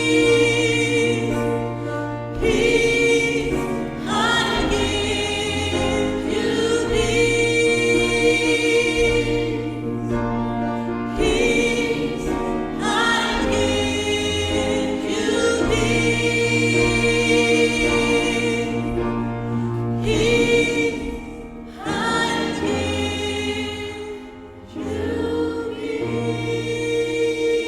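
Gospel choir singing a song in held chords, with short breaks between phrases.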